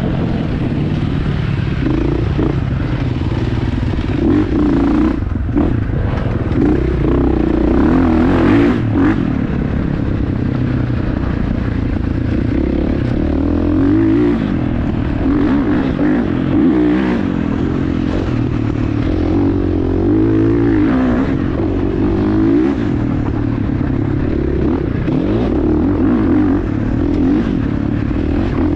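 Dirt bike engine running continuously on a trail ride, its pitch rising and falling as the throttle opens and closes.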